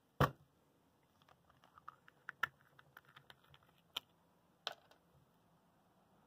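Clicks and ticks: one sharp click at the start, a patter of small irregular ticks for about two seconds, then two more sharp clicks close together.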